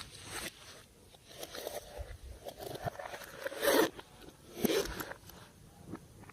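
Slime being mixed and pressed by hand: irregular sticky crackling and squishing, with two louder bursts near the middle.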